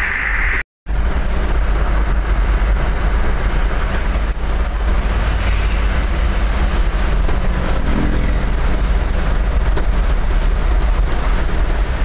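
Steady engine and road noise heard from inside a truck cab driving along a highway, with a strong low rumble. The sound drops out completely for a moment just under a second in.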